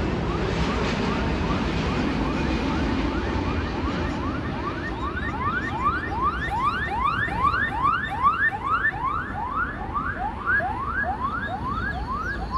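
Boeing 787 jet engines rumbling on approach, fading as the airliner passes. Then a fast, even series of rising chirps, about three a second, that grows louder and keeps going.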